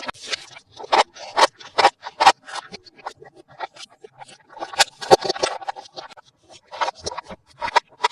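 Toy packaging being handled and opened by hand: an irregular run of crinkles, clicks and scrapes.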